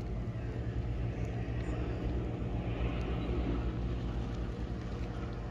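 Steady low engine drone with an even hum throughout.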